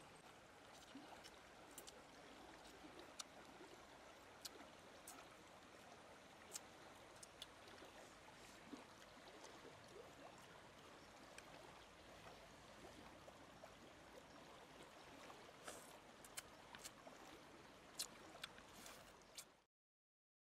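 Faint, steady rush of a stream, with scattered small clicks over it. It cuts off to silence near the end.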